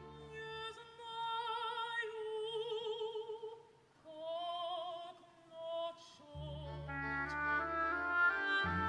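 Operatic soprano singing two long held phrases with wide vibrato over a soft orchestra. About two-thirds through, the low strings come in and the orchestra takes over with moving string and wind lines.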